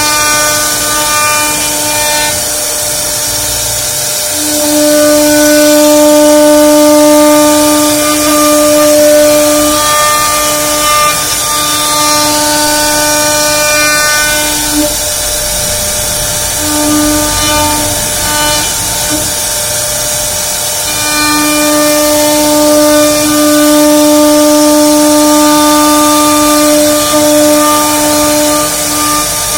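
Small CNC machine running: its motors give a steady whine in a few fixed tones that start, stop and change as the machine moves, over a constant high hiss.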